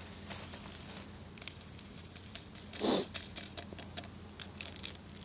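Light crinkling and clicking handling noises, with one short, louder swishy sound about three seconds in, over a faint steady low hum.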